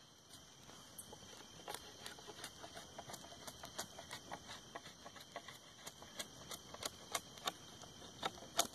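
Knife blade shaving bark off a green wooden stick for a tool handle, in short, irregular scraping strokes several times a second, the sharpest ones near the end.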